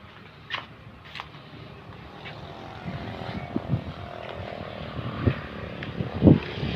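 A small engine running steadily, growing gradually louder, with a few sharp knocks along the way.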